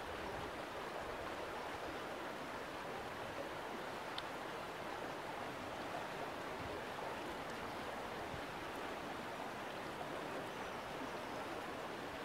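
Shallow stream running over a rocky riffle: a steady rushing of water.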